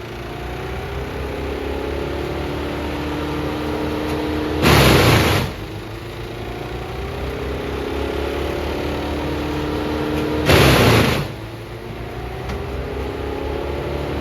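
Morbark M14 Blizzard drum chipper's 140 hp Perkins 1104E diesel engine running steadily. Loud rushing bursts of under a second break in twice, about five and eleven seconds in, at an even spacing of roughly six seconds.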